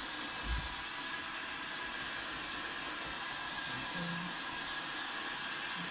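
Electric heat gun running steadily, its fan blowing hot air onto vinyl wrap film to soften it before it is stretched around a curve. A brief low thump about half a second in.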